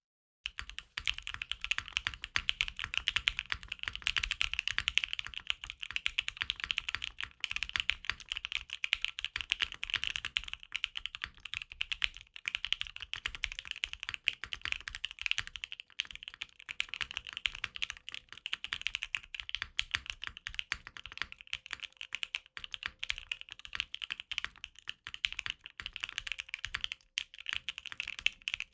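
Typing on a Freebird TKL mechanical keyboard built with a POM plate and lubed L+F ThocThock Marshmallow linear switches under PBT keycaps: a fast, continuous stream of keystrokes.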